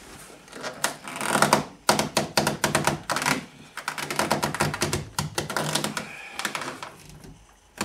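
Passenger-door trim panel of a 1998 VW Polo being handled, a rapid, irregular run of plastic clicks, taps and rattles with some creaking as it is worked at by hand.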